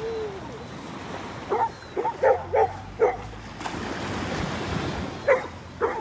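A small dog barking: a quick run of short barks about one and a half to three seconds in and one more near the end, over a steady wash of surf.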